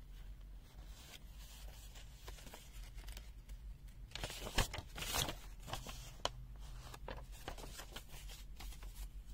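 Faint rustling and light clicks of a multimeter kit and its packaging being handled, with a louder rustle about four to five seconds in.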